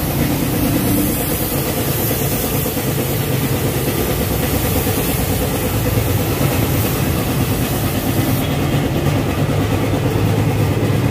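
Compressed-air paint spray gun hissing as it sprays paint onto a car bumper, over a steady low engine-like hum. The hiss stops about eight and a half seconds in, leaving the hum.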